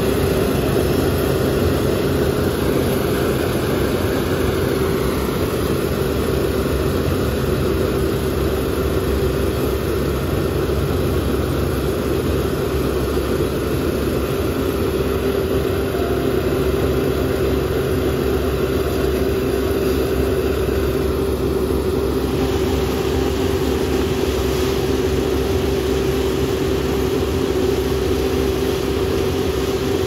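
Kubota combine harvester running steadily as it harvests rice through a muddy paddy: a steady diesel engine drone with a constant whine over it.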